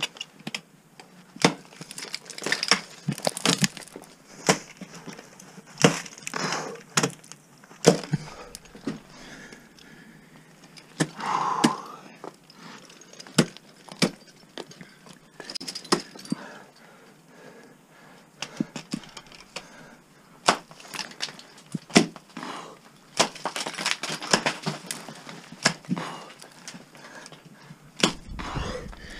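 Ice tool picks swung into water ice, striking with sharp cracks at irregular intervals, about one to two a second in bursts. Between the strikes there is a light jangle of climbing hardware and softer stretches of the climber's breathing.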